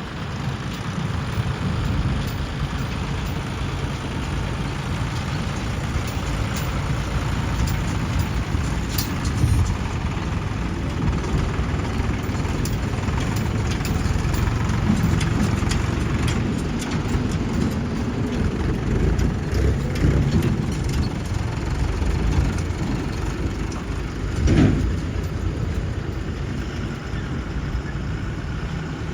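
Heavy diesel machinery engine running steadily, with a single louder knock about three-quarters of the way through.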